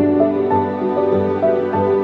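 Instrumental background music: a melody of held notes over lower sustained notes.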